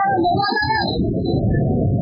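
Background music with a wavering, sliding melody line over a dense low accompaniment.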